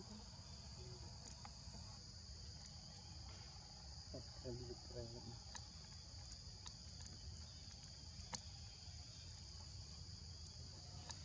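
Insects droning in the background, a steady high-pitched buzz that never lets up. A few short, faint calls come about four seconds in, with some faint clicks later.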